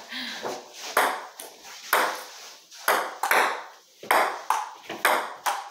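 Table tennis ball in a rally, clicking off the paddles and bouncing on the table, a sharp hit about every half second to a second.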